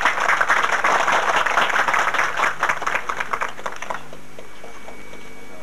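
A crowd applauding, many hands clapping at once; the applause thins out and stops about four seconds in.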